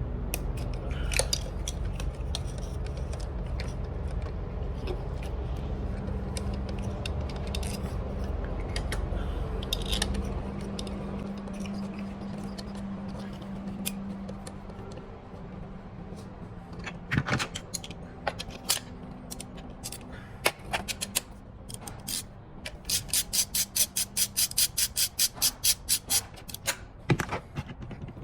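Ratchet wrench and metal tools clicking and clinking while spark plugs are fitted, with a steady low hum in the first few seconds. Near the end comes an even run of ratchet clicks, about four a second, for a few seconds.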